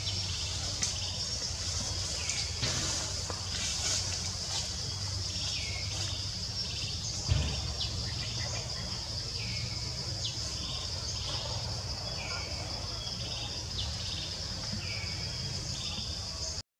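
Forest ambience: a steady high insect drone, with a bird repeating short falling calls about once a second over a low hum. A single thump about seven seconds in.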